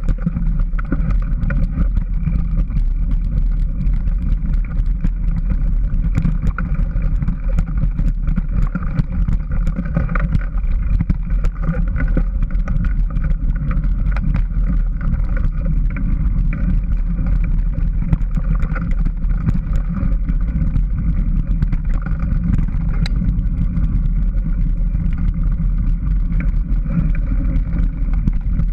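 Steady rumble and rattle of riding fast along a dirt forest trail, picked up by a bike-mounted camera, with small clicks and knocks from the bumps throughout.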